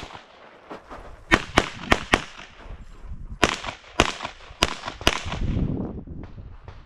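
Pistol shots fired rapidly during a competition stage: about eight sharp cracks, mostly in quick pairs, four in the space of a second and then four more over the next two seconds.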